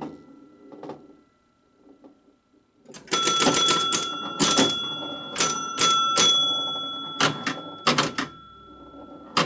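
Scoring bells of a 1969 Gottlieb Airport electromechanical pinball machine ringing, about a dozen strikes from about three seconds in, mixed with the clicking of the machine's relays and score reels stepping. Before that, the machine is quiet apart from a few faint clicks.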